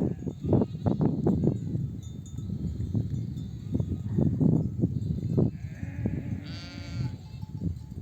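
Sheep, with one quavering bleat about six and a half seconds in, the ewes calling their lambs to nurse. Irregular knocks and a low rustling noise run under it.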